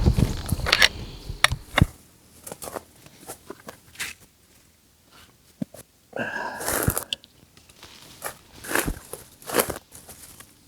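Footsteps crunching and rustling through dry leaf litter, irregular, with a louder rustle about six and a half seconds in.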